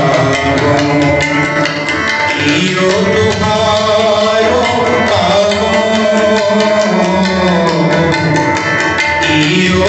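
Sikh kirtan: harmonium droning chords and melody with a steady tabla rhythm, and a voice singing the shabad.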